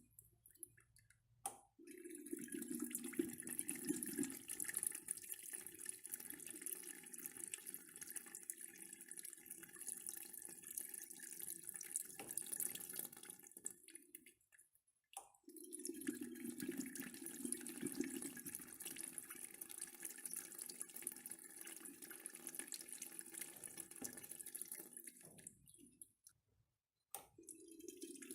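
Urinal flushing with its push-button flush valve, flushed repeatedly: a click starts each flush, followed by water rushing through the bowl for about twelve seconds before it shuts off. One flush ends about fourteen seconds in, the next starts about a second later, and a third starts near the end.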